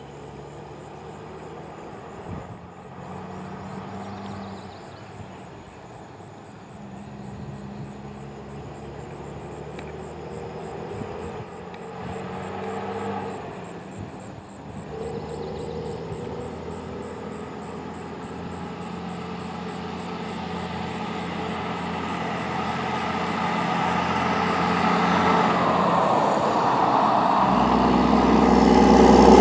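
Loaded Mack tri-axle dump truck's diesel engine and tyres, growing steadily louder as the truck approaches along the road. The engine note comes and goes in stretches. A heavy low rumble sets in near the end as the truck draws close.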